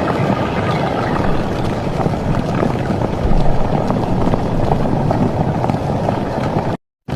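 A few faint bird calls over a loud, steady rumbling noise; the sound cuts out completely for a moment near the end.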